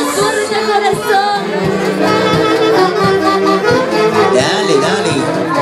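Live band music with a steady beat and held melody lines.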